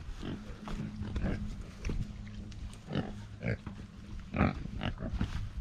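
Pigs grunting: an irregular run of short grunts, about two or three a second.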